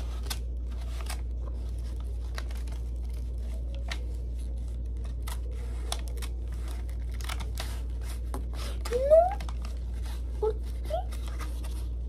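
Small scissors snipping through notebook graph paper in short, irregular cuts, over a steady low hum. About nine to eleven seconds in come a few brief rising voice sounds, the loudest moments.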